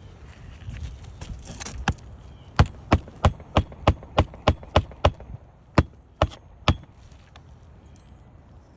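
Claw hammer driving roofing nails into an asphalt shingle: a run of about ten sharp strikes at roughly three a second, then three more spaced further apart. A brief scraping rustle comes before the first blow.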